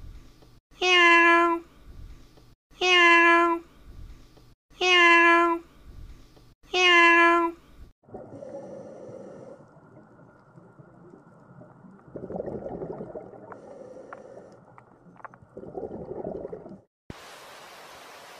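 Domestic cat meowing: the same meow repeated four times, about two seconds apart. A lower, rough sound with two louder stretches follows, then a steady hiss near the end.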